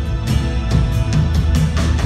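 Live worship band playing an instrumental passage, with a steady drum beat and heavy bass.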